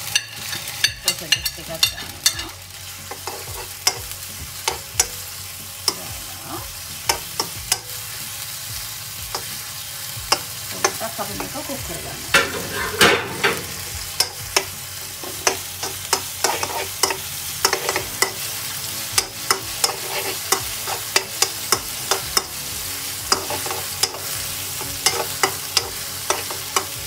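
Shrimp and chopped sausage sizzling in olive oil in a metal wok, stirred with a metal slotted spatula that clicks and scrapes against the pan many times. A louder stretch of stirring comes about halfway through.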